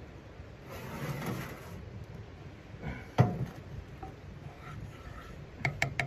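Cookware being moved around on a steel stove top: a scraping slide about a second in, one loud clunk around the middle, and a few quick clicks of a wooden spatula against the pan near the end.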